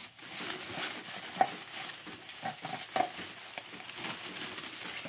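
Honeycomb kraft paper packing wrap rustling and crackling as it is pulled away by hand, with a few sharper crackles about one and a half and three seconds in.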